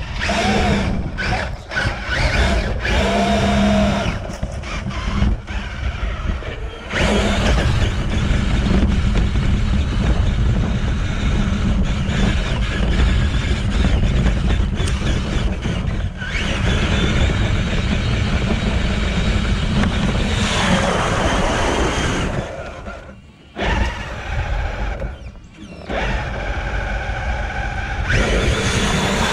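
Traxxas TRX-4 RC crawler's electric motor and gearbox whining as the truck drives over dirt and grass, with bumps and rattles from the chassis and tyres. The noise drops away twice, briefly, about two-thirds of the way through.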